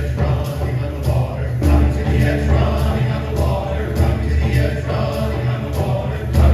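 Mixed choir singing with piano and percussion, a steady beat of drum strikes under sustained choral chords.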